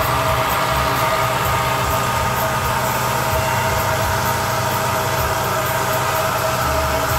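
Zetor Forterra HSX 130 tractor running steadily under load while pulling a Mascar Future Maxi M6 precision planter, heard from a car driving alongside, with a steady whine over the engine noise.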